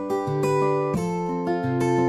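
Background music on acoustic guitar, a steady run of plucked notes and chords.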